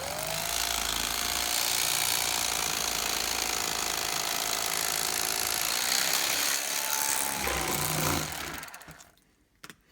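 Electric carving knife running as it fillets a herring, its reciprocating blades buzzing steadily with a faint motor whine. It starts up at once, runs for about eight seconds, then winds down and stops.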